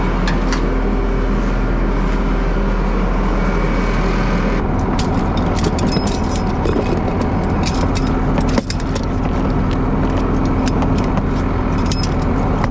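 Tow truck engine idling steadily. From about five seconds in, rapid metallic clinks and rattles come from ratchet straps and tools being rummaged in a plastic toolbox.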